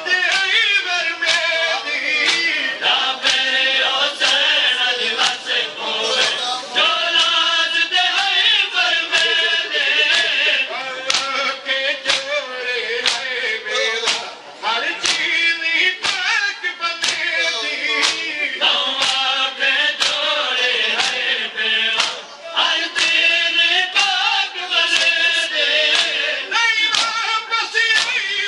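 A Saraiki noha, a mourning lament, recited in chorus by a crowd of men following a lead reciter on a microphone. Their rhythmic chest-beating (matam) keeps a steady beat of sharp slaps under the chant.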